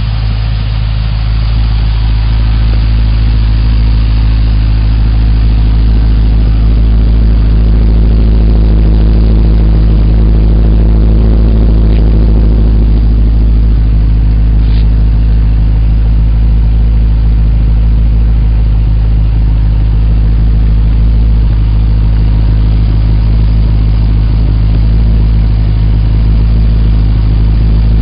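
Holden Commodore SV8's 5.7-litre LS1 V8 running through a free-flowing cat-back exhaust on standard headers, a deep steady exhaust note that swells a little over the first few seconds.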